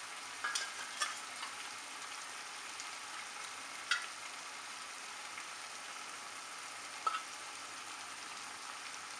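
Mutton pieces sizzling steadily as they fry in a pot, with a few short clicks scattered through.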